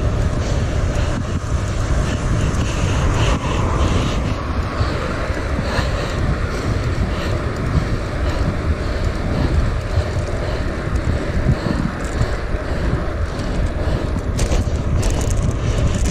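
Wind rushing over the microphone of a camera on a moving bicycle, a steady low buffeting noise.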